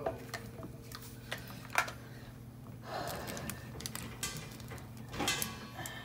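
Scattered light clicks and knocks of hands handling refrigerant hoses, fittings and a 134a cylinder, over a steady low hum.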